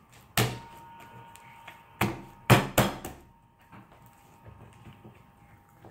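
A large lump of homemade glue slime being slapped and pressed by hand against a wooden tabletop: four thuds, one about half a second in and three close together between two and three seconds in.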